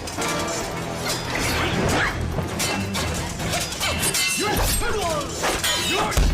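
Dramatic background music under fight sound effects: repeated sharp hits, swishes and crashes, with a heavy thump near the end.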